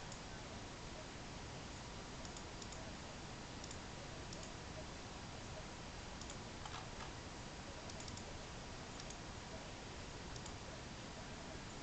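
Faint, irregular soft clicks, about a dozen spread unevenly, over steady room hiss and a faint high hum.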